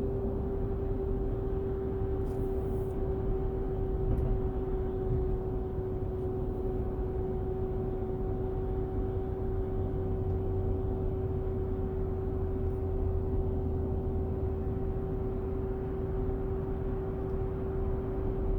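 2014 Infiniti QX60 on the move: a steady, even-pitched hum over low road rumble. This is the hum the owner says begins at about 45 mph; the wheel hubs have been checked and one replaced, and the cause is undiagnosed.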